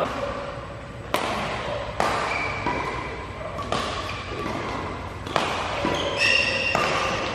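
Badminton rackets striking a shuttlecock in a doubles rally: five sharp hits, spaced one to two seconds apart.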